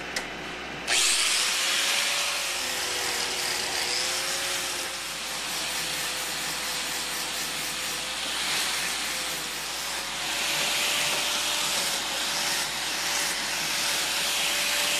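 Angle grinder fitted with a flap disc switches on about a second in and grinds the ends of metal tubes. It makes a steady loud hiss over the motor's whine, which wavers slightly as the disc bears on the work.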